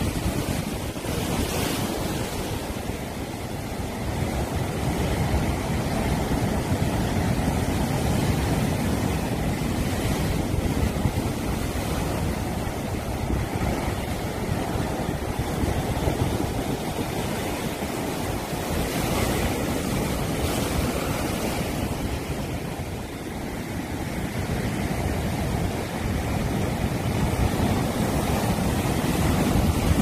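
Sea waves breaking and crashing on shoreline rocks: a continuous rush of surf and foam that rises and falls as successive waves hit.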